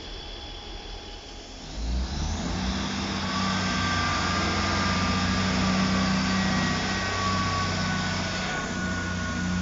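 A Class 158 diesel multiple unit's underfloor engines running with a steady low hum as the train moves slowly past, with thin high squeals over the top. The sound starts suddenly about two seconds in, after quieter station ambience.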